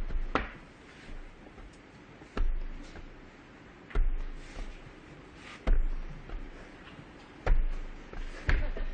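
About six sharp knocks on a tabletop at uneven intervals, each with a low thud, as metal cups and balls are put down and moved about in a cups-and-balls routine.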